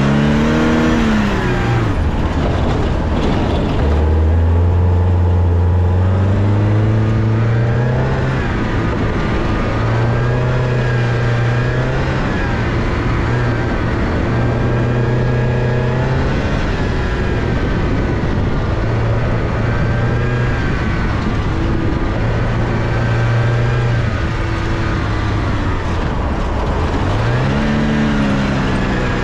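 Porsche 944's four-cylinder engine under hard driving on a dirt rallycross course, heard from inside the cabin, its revs climbing, holding and dropping again and again as the car is pushed through the course.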